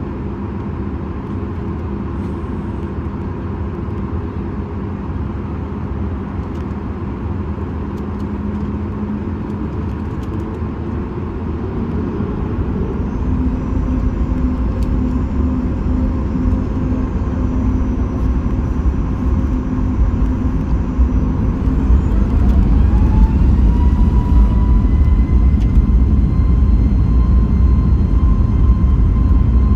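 Cabin noise of a Boeing 737 MAX 8 with its CFM LEAP-1B turbofan engines running. A steady hum grows louder from a little under halfway in. About three-quarters in, an engine whine rises in pitch and then holds as the engines spool up.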